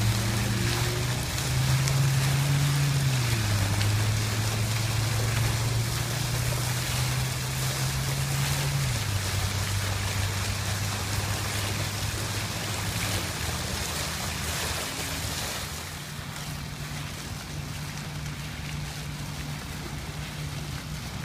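Dancing water fountain: vertical jets shooting up and falling back to splash into the pool, a steady rush of water. Under it runs a low hum that steps up and down in pitch a few times. The sound gets quieter for the last few seconds.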